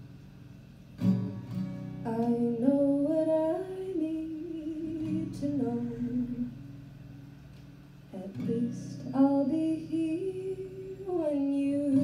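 A woman singing over her own strummed acoustic guitar. New chords are struck about a second in and again about eight seconds in, each followed by a sung phrase over the ringing guitar.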